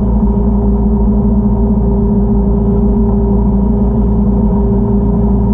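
Motorboat engine running steadily while the boat cruises, a constant low drone with a few fixed tones and no change in pitch.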